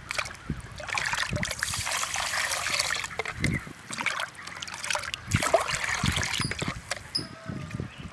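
Water splashing and trickling as a small cup is dipped into a plastic drum and water is poured into a clay pot of raw rice to wash it, in two long pours.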